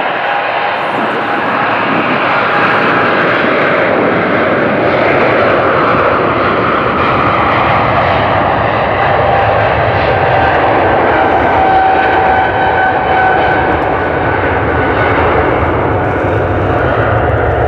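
Boeing 777-200LR's twin GE90 turbofans at takeoff thrust during the takeoff roll: a loud, steady rushing jet noise with two high whining tones riding over it.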